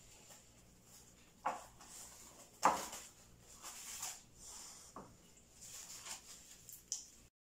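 Plastic cling film crinkling and rustling as it is handled over a glass bowl, with a few sharp crackles; the sound cuts out for a moment near the end.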